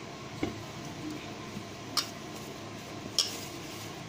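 Hand mixing ragi flour with water in a stainless steel bowl, with three sharp clicks of fingers knocking against the metal bowl, the last two the loudest.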